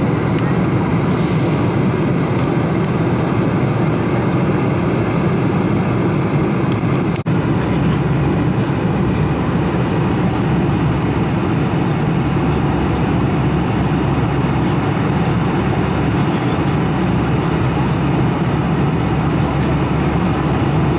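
Steady in-flight cabin noise of a Boeing 747-400, a constant low rumble of engines and airflow heard through the cabin, with a momentary dropout about seven seconds in.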